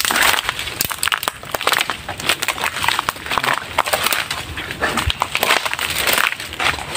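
Footsteps crunching through dry leaf litter and twigs, an irregular run of crackles and snaps.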